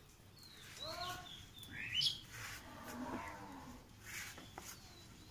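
Faint animal calls: a few short cries that rise and fall in pitch, about one, two and three seconds in.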